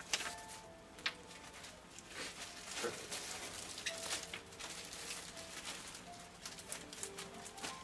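Thin disposable plastic apron crinkling and rustling as it is handled, unfolded and tied, with two sharper crackles in the first second or so.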